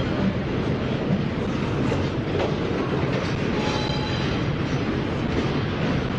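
Double-stack intermodal well cars rolling past at a steady pace, a continuous wheel-on-rail rumble with occasional clacks. A brief faint high-pitched wheel squeal comes about four seconds in.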